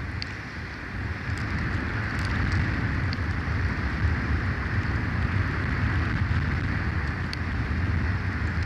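Wind rushing through a pine tree and buffeting the microphone: a steady noise with a deep low rumble, a little louder after the first second, with a few faint high ticks or chirps.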